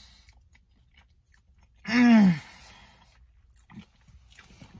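Person eating a sandwich: faint wet chewing and mouth clicks. About two seconds in comes a loud, drawn-out vocal exclamation that rises and then falls in pitch.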